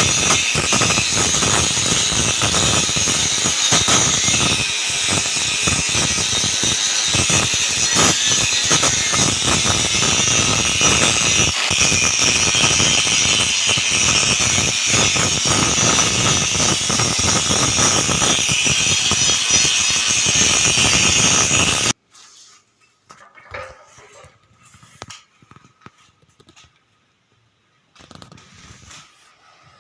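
Stick-welding arc crackling and sputtering steadily as an electrode burns, then cutting off suddenly about two-thirds of the way through when the arc is broken. A few faint knocks follow.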